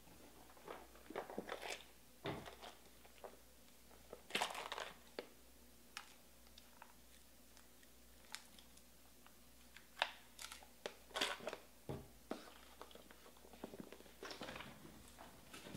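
Faint, irregular clicks and short rustles of something being handled, with the sharpest clicks about ten and eleven seconds in.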